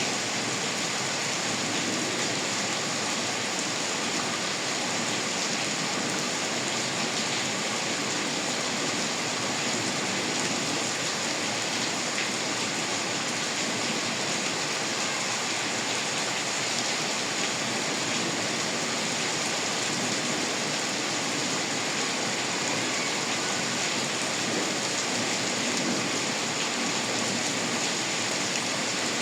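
Steady rain falling, an even hiss with no breaks and no single drops or thunder standing out.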